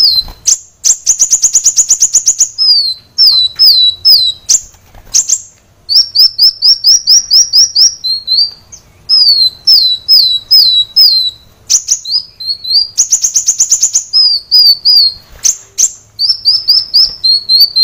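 Kolibri wulung sunbird singing loudly: quick runs of high, sharply falling whistled notes, broken twice by a fast rattling trill of rapid repeated notes.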